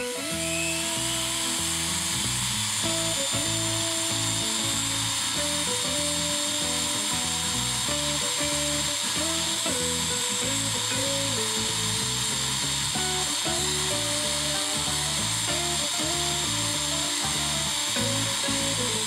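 Handheld rotary tool spinning at high speed with a steady high whine, its mounted abrasive stone grinding and polishing the steel of a push dagger, over background music.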